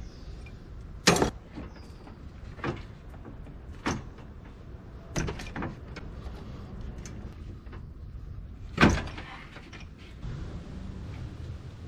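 Hand tools and parts knocking and clanking during work on the car's radiator. There are six sharp knocks, the two loudest about a second in and near nine seconds, over a low steady background.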